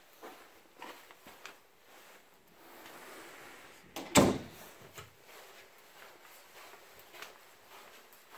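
A single loud thump about four seconds in, followed by a softer knock about a second later, with a few faint light knocks before it.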